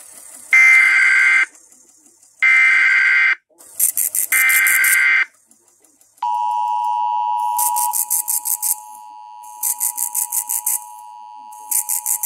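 Emergency Alert System broadcast: three one-second bursts of warbling SAME header data, then about six seconds in the steady two-tone EAS attention signal starts and holds. Groups of rapid high-pitched pulses repeat over the tone.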